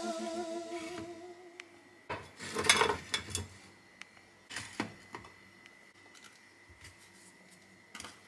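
Glass bottles and jars set down one after another on a ceramic tile board: a handful of knocks and clinks, the loudest cluster about two to three seconds in.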